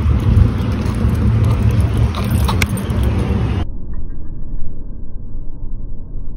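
Steady low rumble with a few faint clicks; about two-thirds of the way through the sound turns suddenly muffled, the higher part cut away, while the low rumble goes on.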